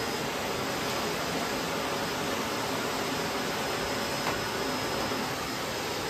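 Bosch BGS21X320 bagless canister vacuum cleaner running steadily at suction, its floor nozzle being pushed over a wooden floor.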